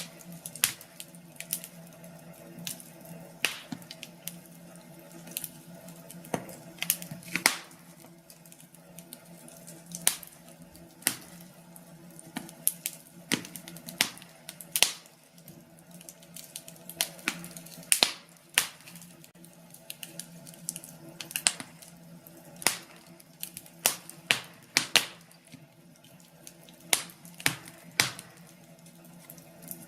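Wood fire burning in a fireplace, crackling with irregular sharp pops and snaps over a low steady hiss.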